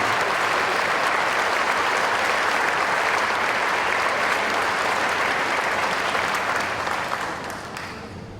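Audience applauding steadily in a hall, the clapping dying away over the last couple of seconds.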